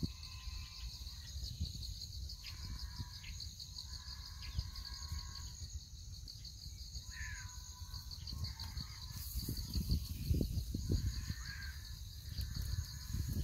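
Outdoor ambience: birds calling now and then over a steady, high-pitched, pulsing insect chirr, with a low rumble that grows louder toward the end.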